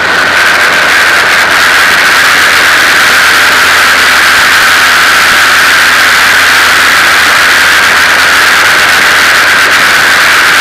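Formula 2000 open-wheel race car running at speed on track, picked up onboard: a loud, steady, overloaded wash of engine and wind noise with no let-up.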